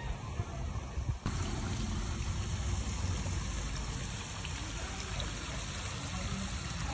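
Steady rush of running water, changing abruptly to a fuller sound a little over a second in.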